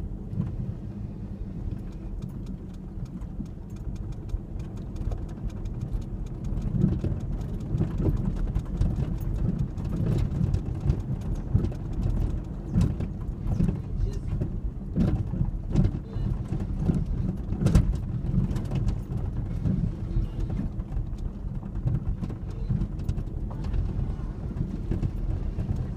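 2003 Ford Ranger 4x4 pickup driving off-road: a steady low engine-and-drivetrain drone with frequent short knocks and rattles as it jolts over rough ground, busiest through the middle.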